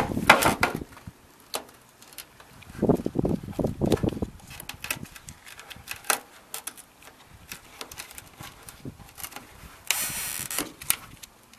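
Handling noises from fitting a rubber gasket onto a gutter: scattered light clicks and taps, a few dull knocks a few seconds in, and a short rustling scrape near the end.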